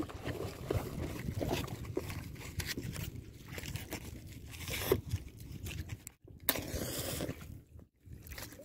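Crinkling and rustling of a cigarette pack being handled and opened close to the microphone, a run of small irregular crackles.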